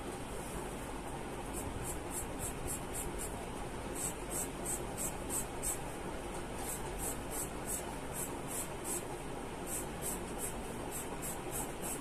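Charcoal pencil scratching on drawing paper in quick back-and-forth shading strokes, about three to four a second, in short runs with brief pauses, over a steady faint hiss.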